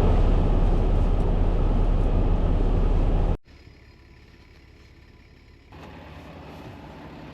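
Semi truck running: a loud, steady, low engine rumble that cuts off abruptly a little over three seconds in, followed by a much quieter steady hum.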